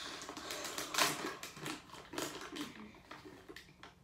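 Plastic lure packaging crinkling and rustling as a soft plastic stick bait is taken out of its bag: a busy run of irregular crackles, loudest about a second in, thinning out near the end.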